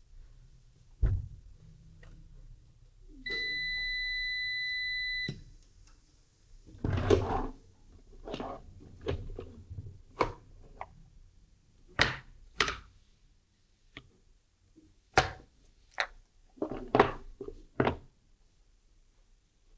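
A steady electronic beep that lasts about two seconds, set among a series of irregular knocks and clunks, as of objects being handled and set down.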